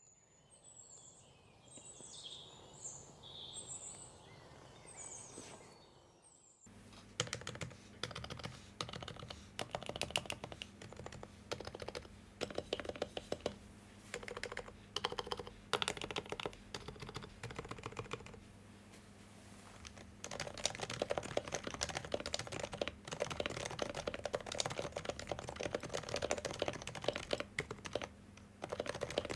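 Typing on an HHKB Pro 2 Type-S, a silenced Topre keyboard whose electro-capacitive rubber-dome switches have lubed sliders and stock silencing rings. Keystrokes come in quick runs with short pauses and grow denser after about twenty seconds. The sound is soft and muted.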